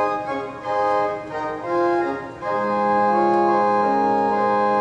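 Pipe organ playing a single 4-foot octave rank (diapason-family flue pipes) speaking from a newly restored windchest. It plays a short passage of chords that change every half second or so, and a lower note comes in about halfway and is held.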